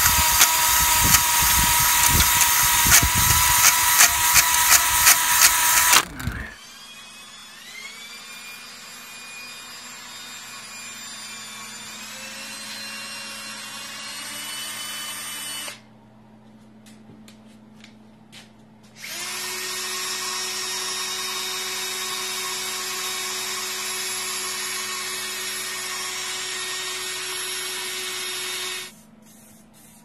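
Cordless drill spinning a cylinder hone inside a bore of a Continental F244 flathead engine block, running loud and steady with rapid regular knocking, roughing up the cylinder walls so new piston rings will seat. It cuts off about six seconds in, leaving quieter hissing with faint tones in two stretches.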